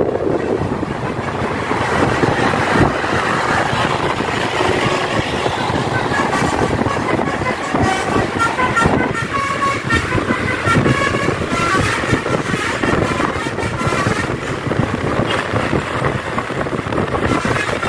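Tour bus's 'telolet' basuri multi-tone musical horn playing a run of short notes at changing pitches for several seconds in the middle, over steady, loud road and engine noise.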